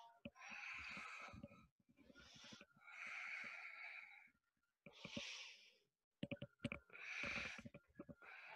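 Deep, audible breathing: four long breaths in and out, with a few soft knocks and rustles from hands and feet moving on a yoga mat a little past halfway.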